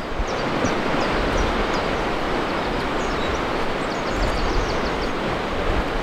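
Wind gusting on the microphone over a steady rushing hiss, with small birds chirping high above it, in a quick flurry about four to five seconds in.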